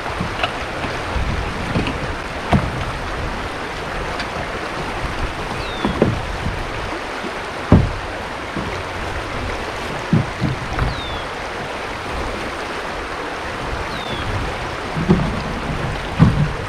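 Steady rush of river current running through a shallow riffle, with several dull knocks, the last ones bunched together near the end.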